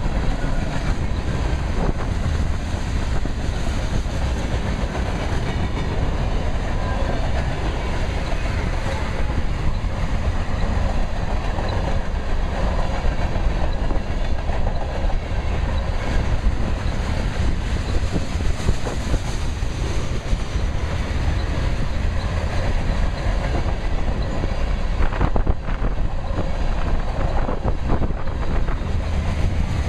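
A train's cars rolling steadily past, the wheels clicking over rail joints, with wind buffeting the microphone.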